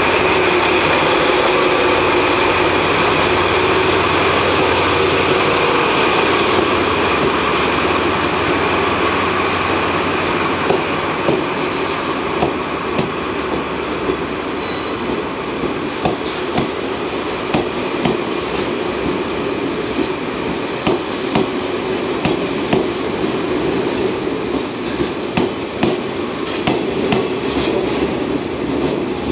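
A JR DD51 diesel-hydraulic locomotive passing close with its engines running steadily, followed by a rake of hauled, unpowered 415-series electric cars whose wheels clack over the rail joints in quick repeated groups.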